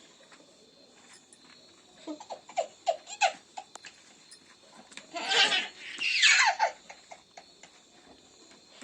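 A baby laughing and squealing in short bursts: a few quick ones about two seconds in, then louder ones with falling pitch around the middle.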